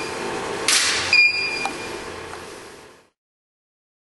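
Studio flash firing with a short burst of noise, followed about half a second later by a high ready beep as the strobe recharges, over a low room hum. The sound fades out to silence about three seconds in.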